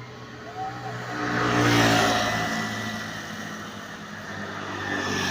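A bus drives past close by. Its engine and rushing noise swell to a peak a couple of seconds in and then die away, and the next swell starts near the end.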